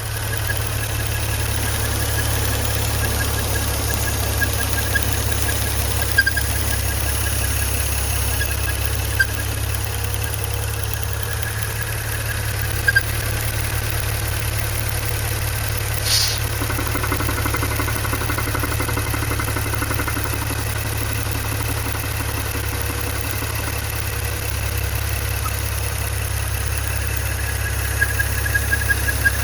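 Maserati V6 engine idling steadily, with a faint, rapidly repeating high squeak over the running note: the engine squeak traced to a failed PCV (oil vapour) valve with a holed diaphragm. A single sharp click sounds about halfway through.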